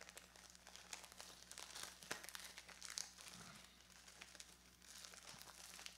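Faint crinkling and crackling of a guitar pedal's packaging being handled and torn open, in scattered irregular clicks over a low steady hum.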